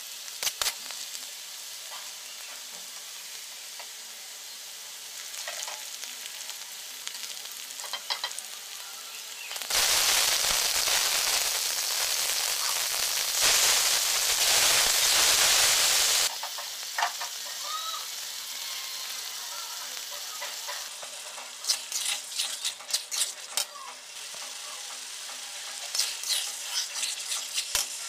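Onions and green chillies sizzling as they fry in oil in a metal karahi, stirred and scraped with a metal spatula. About ten seconds in, the sizzle turns much louder for about six seconds as spice paste goes into the hot oil, then settles back. Quick scraping strokes of the spatula against the pan come near the end.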